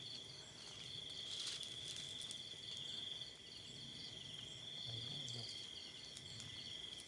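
Night insect chorus of crickets: a steady, high-pitched continuous trill with a faster pulsing chirp just above it.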